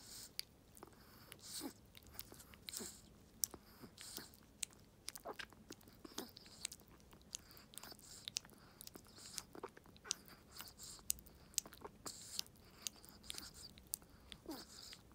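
A Chihuahua licking and lapping liquid food from a syringe held to its mouth: irregular wet clicks and smacks of tongue and lips, with short hissy slurps now and then.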